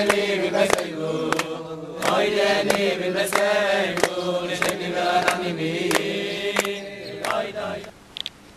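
A crowd of men singing a melody together, with hand claps on the beat about every two-thirds of a second. The singing breaks off near the end.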